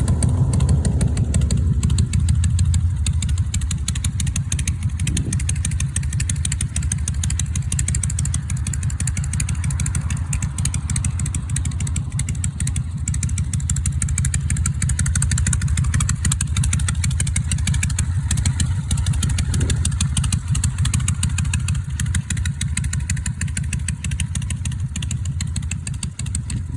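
Harley-Davidson four-speed Shovelhead air-cooled V-twin engine running after its repair. The revs fall over the first two seconds and it settles into a steady idle, with two brief rises in revs about 5 and 20 seconds in.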